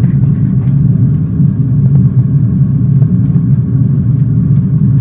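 Steady low rumble of in-flight cockpit noise played by an Airbus A320 flight simulator.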